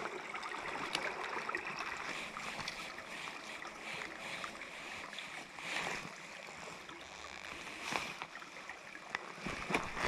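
Small stream running, a steady rushing hiss of water, with a few short knocks and ticks scattered through it.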